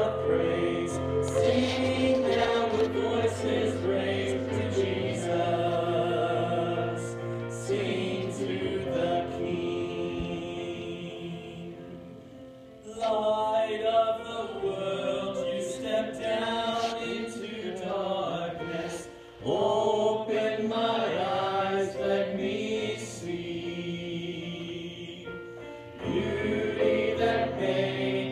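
Choral music: voices singing together in long phrases, each fading and then restarting abruptly about 13, 19 and 26 seconds in.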